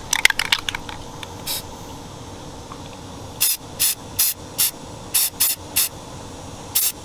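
Aerosol spray-paint can sprayed in short hissing bursts through a stencil: a quick run of very short spurts near the start, then about eight short bursts through the second half.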